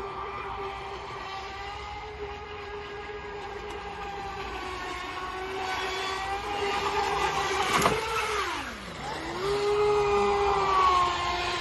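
Electric motor and propeller of a HobbyKing Aquaholic V2 RC boat whining steadily at speed, growing louder as it comes close. About eight seconds in the whine falls steeply in pitch, rises again a second later, and cuts off near the end.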